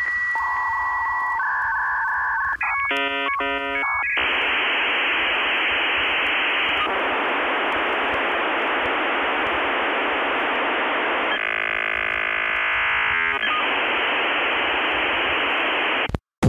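Dial-up modem connecting over a phone line. A steady answer tone and a few switching tones come first, then a quick burst of warbling negotiation tones about three seconds in, then a long hiss of line training with a brief stretch of layered tones in the middle. It cuts off suddenly near the end.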